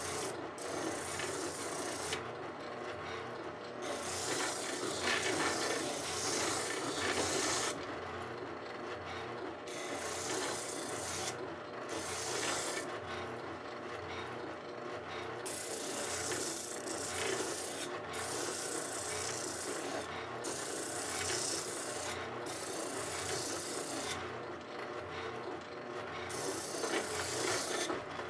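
A spindle sander runs steadily while knife handle scales are pressed against its abrasive sleeve. The sanding hiss comes and goes in repeated passes every second or two as the handle touches the drum and lifts off.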